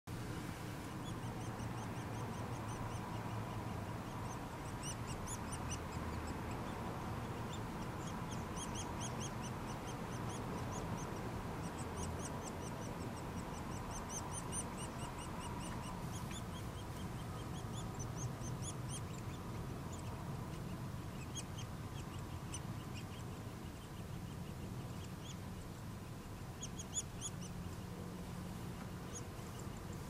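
Nuttall's woodpecker nestlings begging from inside the nest cavity: repeated runs of short, high-pitched chattering calls, over a steady low hum.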